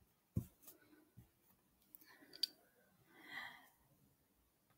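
Near silence with two faint clicks, one about half a second in and a sharper one about two and a half seconds in, and a brief faint hiss a second later.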